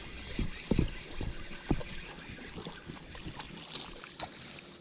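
Wind rumbling on the microphone, with scattered knocks and thumps from handling a spinning rod and reel while a small fish is brought in. A faint steady insect chirping comes in near the end.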